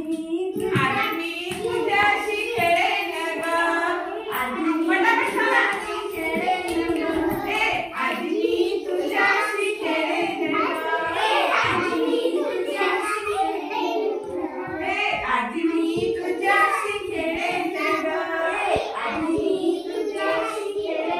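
A group of young children singing a Marathi action song together, with clapping.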